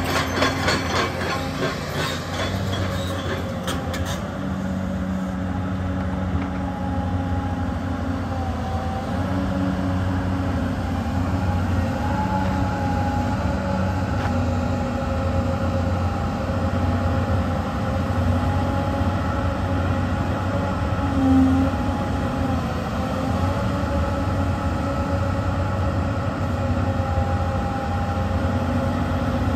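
Hyundai R360LC-7A excavator's diesel engine running steadily, a low rumble with a steady whine laid over it. Light rapid ticking in the first few seconds.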